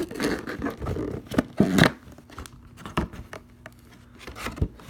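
Cardboard box and packaging being handled and pulled open: rustling and scraping, loudest about a second and a half in, then a few sharp knocks.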